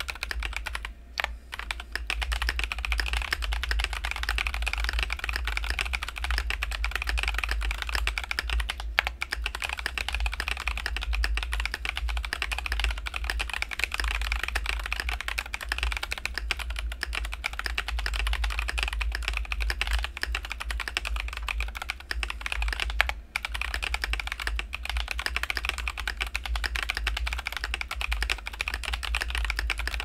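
Continuous fast typing on a GMMK Pro aluminium keyboard fitted with unlubed Prince tactile switches and Cherry-profile PBT keycaps: a dense stream of keystroke clacks, briefly pausing about a second in and again about two-thirds of the way through.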